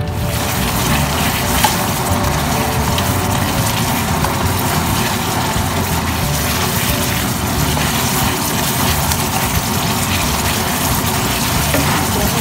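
Panang curry sauce of coconut milk and curry paste bubbling and sizzling in a wok as it reduces, stirred with a wooden spatula: a steady frying hiss.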